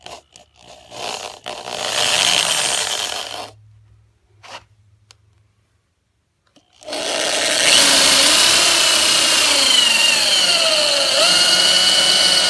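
Electric drill driving a hole saw of about 1¼ inch into a PVC sanitary tee. There are a few short trigger blips and a two-second run near the start, then a long continuous cut from about seven seconds in, its whine sagging and rising again as the saw teeth bite into the plastic.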